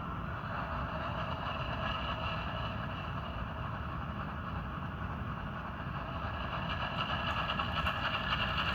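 Sound decoder of an HO-scale Walthers Mainline ES44AC model diesel locomotive playing its engine sound through the model's small speaker as it runs slowly in reverse, growing louder over the last few seconds.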